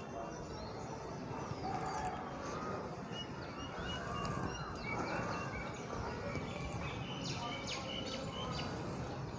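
Birds chirping and calling in short, scattered phrases over a steady low background rumble.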